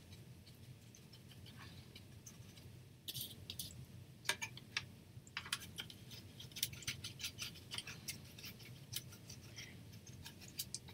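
Paintbrush blotting paint into the inside of a metal sardine tin: faint, irregular light taps and scratches, coming more often from about three seconds in.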